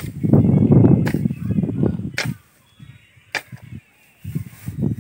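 Hand hoe chopping into grassy soil: three sharp strikes about a second apart, with rough scraping of the blade through grass and earth around them.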